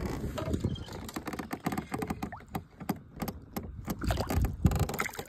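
Close handling noise from a freshly caught largemouth bass held up against the microphone in a kayak: a dense run of knocks, taps and rubs.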